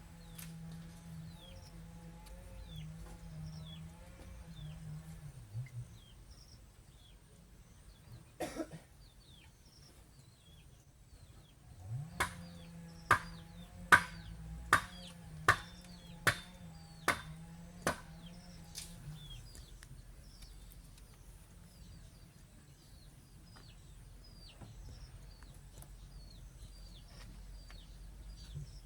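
Baby chicks peeping: short, high chirps that slide downward, scattered throughout. About halfway through, a low steady hum comes in with a run of sharp knocks, about one a second, then stops.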